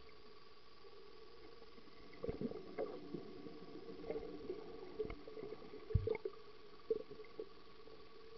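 Muffled sound recorded underwater in a swimming pool: a steady hum with irregular knocks and thumps from the camera moving in the water, starting about two seconds in and loudest about six seconds in.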